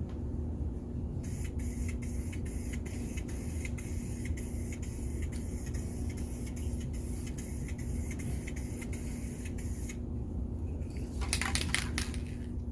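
Aerosol spray can of wheel paint hissing in many short bursts, with a steady low hum underneath. It pauses briefly near the end, then sprays louder again.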